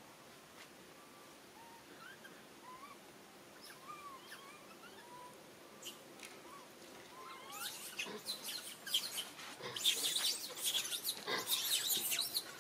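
Baby long-tailed macaques squeaking: scattered short chirps at first, then from about halfway a dense run of shrill squeals and scratchy clicks, loudest near the end.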